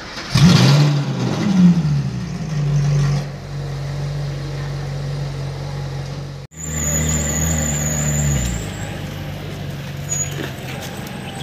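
Ferrari 458 Italia's V8 gives a loud flare of revs, blips again about a second later, then settles into a steady idle. After a sudden cut about six and a half seconds in, a 458's V8 idles on, with a thin high whine over it.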